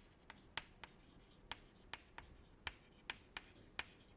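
Chalk tapping and scratching on a chalkboard as words are written: a faint string of short, irregular ticks, about three a second.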